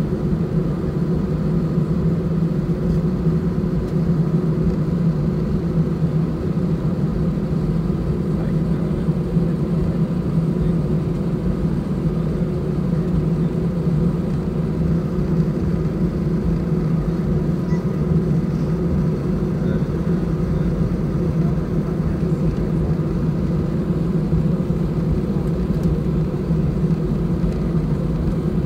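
Inside the cabin of an Airbus A320 taxiing, its two CFM56-5A3 turbofan engines at idle: a steady, even low hum mixed with cabin air noise.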